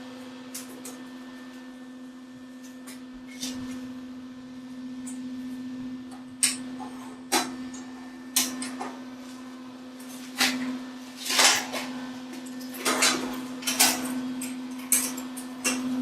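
A steady electrical hum with a run of sharp metal clanks and a few short noisy bursts starting about six seconds in, from steel side pieces being set in place and MIG tack-welded onto a welding table frame.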